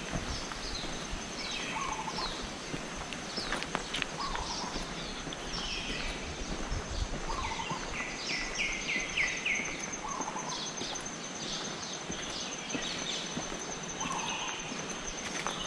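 Forest birds chirping and calling over one another, with a lower call repeating every two to three seconds. Beneath them runs a steady high insect drone and an even hiss of flowing water.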